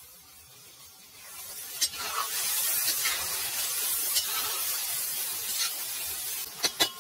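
Chicken pieces and onions sizzling in hot oil in a large metal kazan, the sizzle swelling about a second in as they are stirred. A metal skimmer scrapes and clicks against the pot, with a few quick sharp taps near the end.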